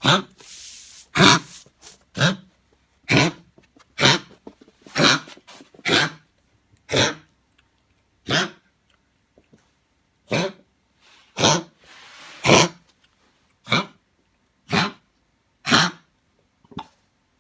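A dog reverse sneezing: a long run of short, harsh, forceful breaths, about one a second, with a brief pause about halfway through.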